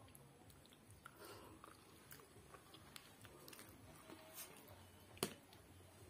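Faint chewing and wet mouth sounds of a person eating spicy instant noodles, with scattered small clicks and one sharp click about five seconds in.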